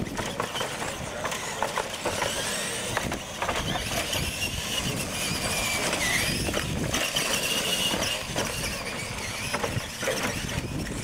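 R/C monster trucks racing, their motors whining and rising and falling in pitch with the throttle, with several knocks as the trucks hit the plywood ramps.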